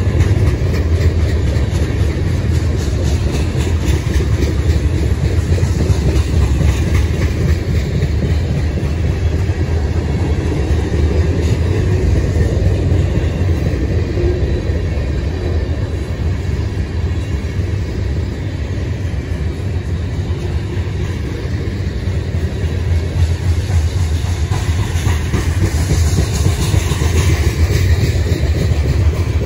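Train cars rolling past on the rails: a loud, steady low rumble with dense wheel clicks throughout. A brighter, hissier stretch comes near the end.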